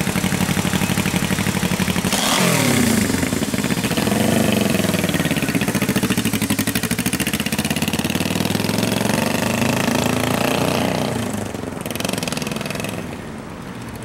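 Honda CB450 parallel-twin motorcycle engine pulling away, its note rising and falling through the gear changes, then fading as the bike rides off near the end.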